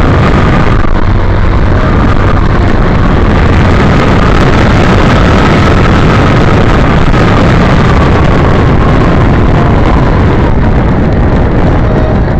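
Wind buffeting the microphone of a camera on a moving bike: a loud, steady rush with a faint high whine that drifts slightly in pitch.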